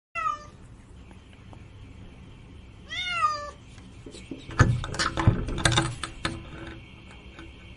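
Domestic cat meowing twice: a short meow falling in pitch at the start, and a longer meow about three seconds in that rises and falls. After that comes a cluster of knocks and rustling.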